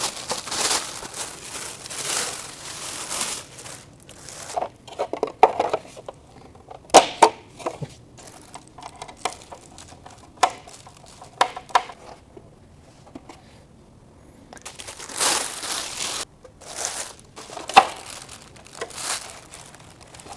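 Crinkling, rustling handling noise in two longer stretches, one at the start and one about two-thirds through, with scattered sharp clicks and knocks of hard parts in between.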